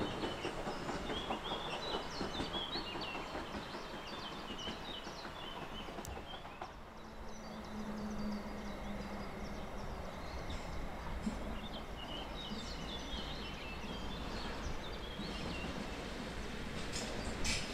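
Small songbirds chirping and twittering in short calls over a steady low background noise. The calls thin out in the middle, where a faint hum is heard, and return later.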